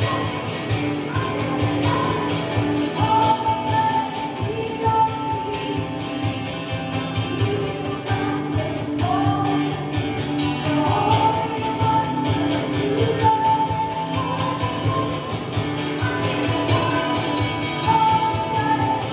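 Worship music: voices singing long held notes over instrumental backing with a steady beat.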